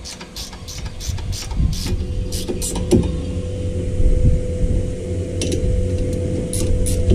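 Spanner working the bolts of a car's front brake caliper: a run of sharp metal clicks and clinks at an uneven pace, several a second, over a steady low hum.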